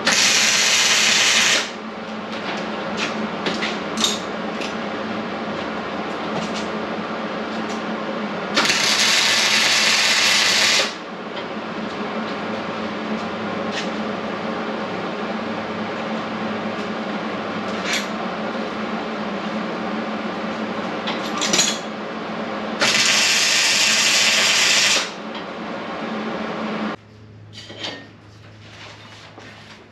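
Arc welder laying three short welds on a steel frame bar, each a loud sizzling crackle of about two seconds, with a steady hum and a few sharp clicks between them. The hum stops near the end.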